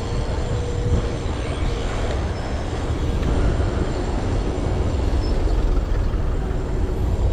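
Steady wind rumble and road noise on an action camera's microphone while riding a BMX bike along a street beside traffic.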